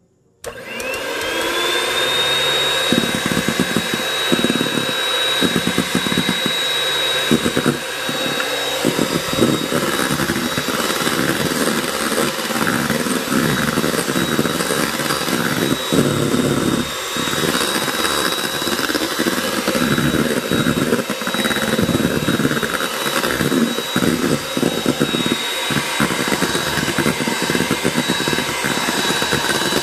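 Lord Eagle electric hand mixer switched on about half a second in, its motor whine rising to a steady high pitch as it runs on high, the wire beaters whipping egg whites at the stiff-peak stage for meringue in a stainless steel bowl. Uneven knocks and rattles run under the whine.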